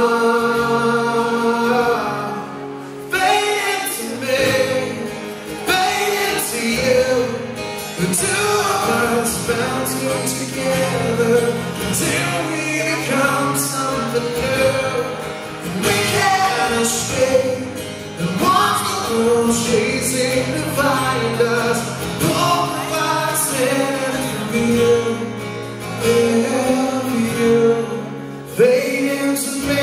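A man singing a song live, accompanying himself on acoustic guitar.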